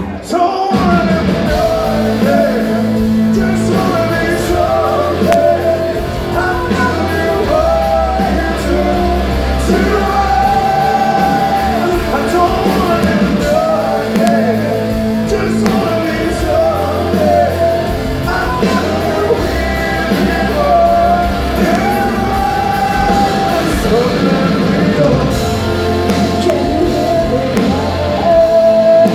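A live rock band playing, with male and female vocalists singing a duet over guitars and drums, recorded from the audience in a large hall.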